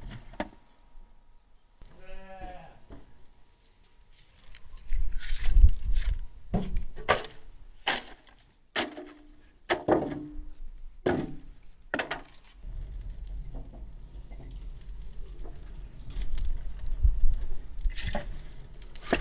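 A single short, wavering bleat from a sheep or goat about two seconds in. It is followed by a run of sharp knocks and clatter, the loudest sounds here, and later a steady low rumble.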